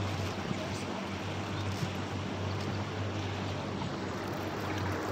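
River tour boat's motor running at a steady low drone as the boat cruises, under an even rush of wind and water noise.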